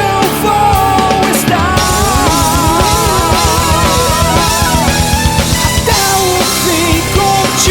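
Rock band playing an instrumental passage on drum kit, guitar, bass and keyboards. In the middle a held lead note wavers with vibrato over a run of rapid kick-drum strokes.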